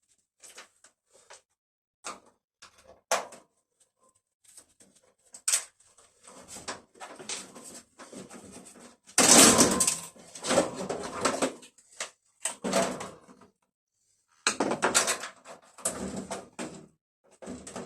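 Irregular clicks, knocks and scraping rattles of parts being handled and pulled out while a washing machine is dismantled, loudest about halfway through.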